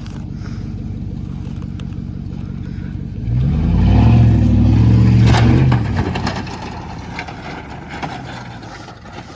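Truck engine running steadily, then revving up about three seconds in and holding high for a couple of seconds before easing off and fading away.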